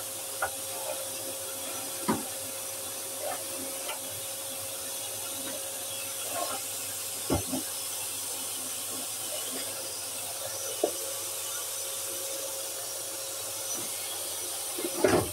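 Vacuum cleaner running steadily, its hose nozzle drawn over a bed quilt, with a few short knocks as it bumps the bed and a louder clatter near the end.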